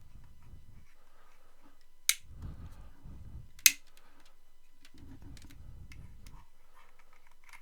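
Handling noise from working on a desktop computer: two sharp clicks, about two seconds and three and a half seconds in, among low rumbling bumps.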